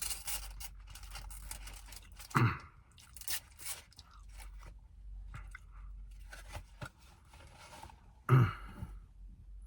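Close-up chewing and crunching of fried chicken strips, with crackles and scrapes of food packaging. Two short vocal sounds come through, one about two and a half seconds in and one near the end.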